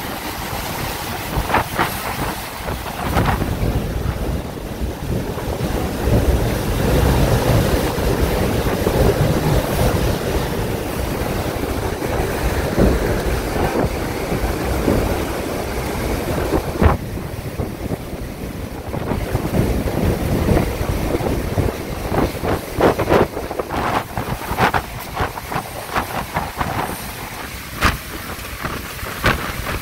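Category 5 hurricane winds blowing with driving rain, in loud gusts with wind buffeting the microphone. Scattered sharp knocks and rattles come thickest in the last several seconds.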